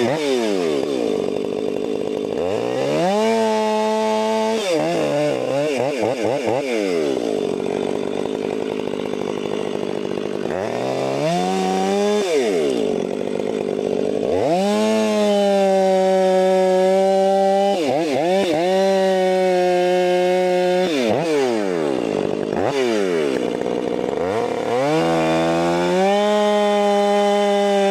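A Stihl 500i fuel-injected two-stroke chainsaw cutting pine at full throttle. The engine note holds steady under load, then falls away and climbs back several times as the throttle is released and reopened between cuts.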